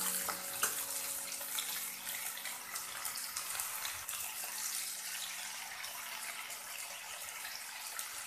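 Bitter gourd and potato pieces sizzling in hot oil in a wok: a steady frying hiss dotted with small crackles.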